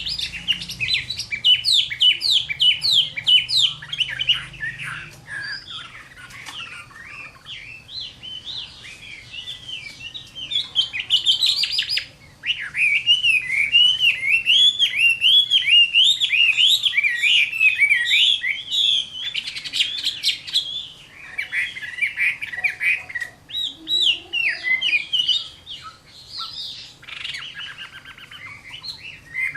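Chinese hwamei (melodious laughing thrush) singing a long, varied song of rapid swooping whistled notes, phrase after phrase, with a few short pauses.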